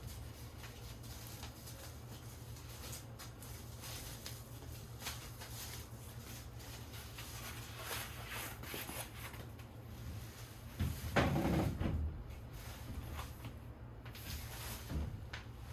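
Light clicks and knocks of objects being handled, over a steady low hum, with a louder bump lasting about a second roughly eleven seconds in.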